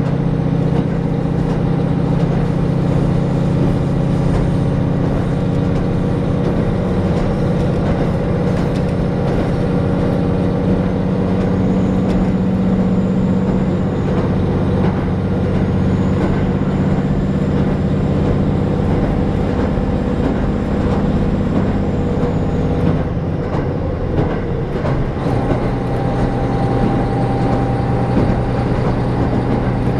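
A diesel railcar running along the line, heard from inside the carriage: a steady engine drone over rumbling wheels on the rails. The engine note changes about three quarters of the way through.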